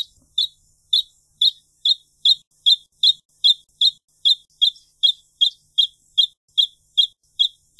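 Wrentit giving a long, even series of short, high notes, about two and a half a second, all at the same pitch and loudness.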